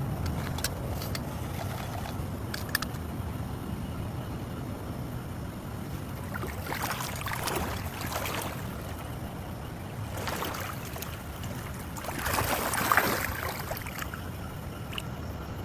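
A steady low motor hum, like a boat engine running, with three swells of rushing, splashing-like noise a few seconds apart; the last and loudest comes near the end.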